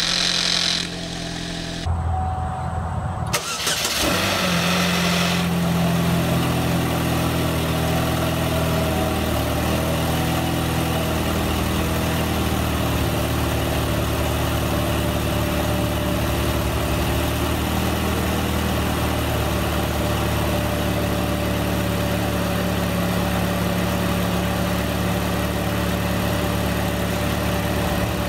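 Cold start of a GM 2.2-litre Ecotec L61 four-cylinder engine with its intake resonator removed. As it comes to life there are a few seconds of odd, hissy noise, which the owner thinks sounds like the timing chain running dry. It then settles into a steady idle.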